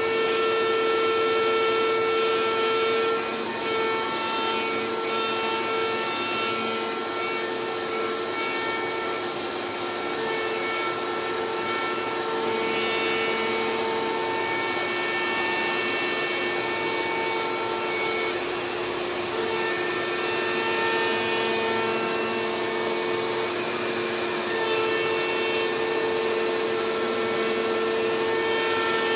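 CNC router's DeWalt router spindle running at a steady whine while milling a carbon fiber sheet, with a hiss of cutting and dust-extraction vacuum noise under it.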